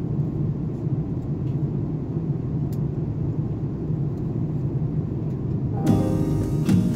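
Airliner cabin noise in flight: a steady low rumble of the jet engines and airflow. Acoustic guitar music comes in near the end.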